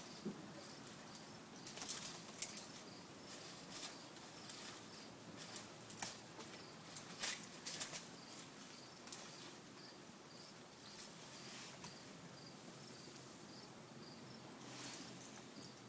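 Insects chirping faintly in a steady repeating pattern, with a few sharp brief crackles or rustles, the strongest near 2, 6, 7 to 8 and 15 seconds in.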